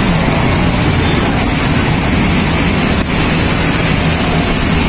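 Steady road traffic noise: a constant rush of passing vehicles with a low engine hum underneath.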